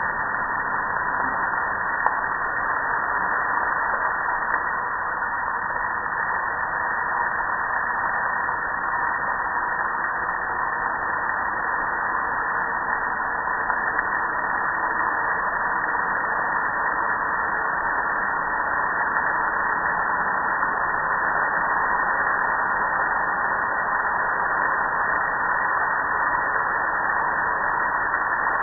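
Water spraying steadily onto a gas grill and streaming off it, a continuous even rush.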